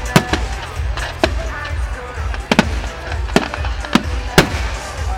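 Fireworks exploding in a display: about seven sharp bangs at irregular intervals, the loudest near the start and near the end, over music playing.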